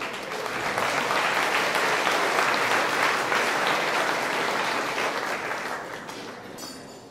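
Audience applauding, swelling within the first second and dying away toward the end.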